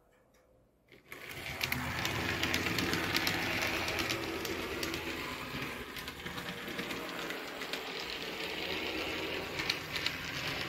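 HO scale model streetcar running on track: a small electric motor's steady whir with wheels clicking over the rails. It starts about a second in and stops near the end.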